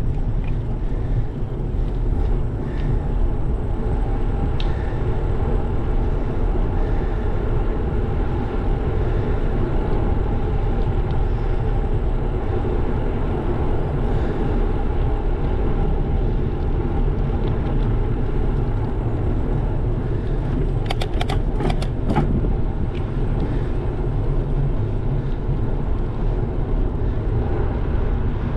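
Bicycle ride recorded on a handlebar- or body-mounted action camera: steady low wind buffeting on the microphone with tyre noise on asphalt, and a quick cluster of sharp clicks or rattles about three-quarters of the way through.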